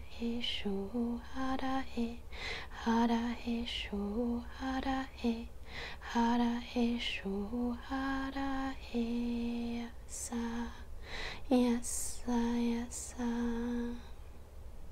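A woman singing light language: a slow chant of made-up syllables on short held notes that step between a few pitches, with breathy consonants between the notes.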